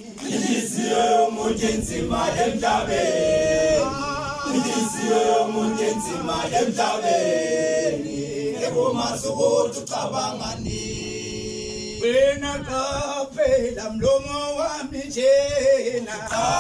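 A group of men singing an ingoma song together unaccompanied, in chorus.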